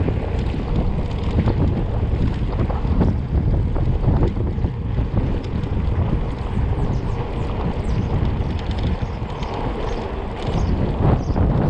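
Wind buffeting the microphone of a camera riding along on a mountain bike over a dirt road, with scattered clicks and rattles from the bike and tyres on the rough surface.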